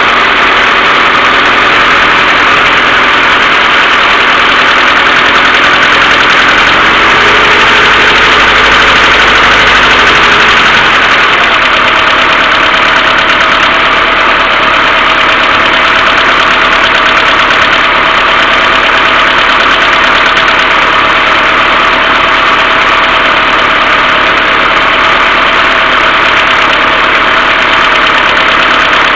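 Mercedes A-Class W168 1.6 petrol engine idling cold with a knocking from the valve train, the common A-Class fault of worn hydraulic valve lifters. Under it runs a continuous hum from the timing chain tensioner, a sign that the hydraulic tensioner needs cleaning or replacing. A steady thin whine sets in about a third of the way through.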